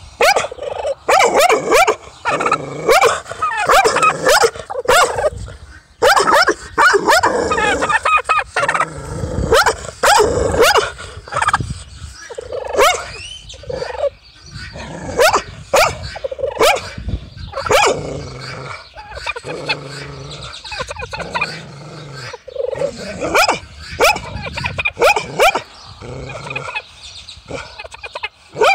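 Domestic tom turkey gobbling while a dog barks, many sharp calls overlapping thickly for the first ten seconds or so, then coming in sparser bursts.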